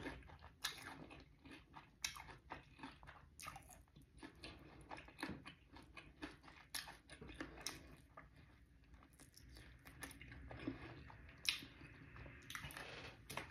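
Faint chewing of a crispy, breaded fried chicken wing: irregular crunches and wet mouth sounds, with no steady rhythm.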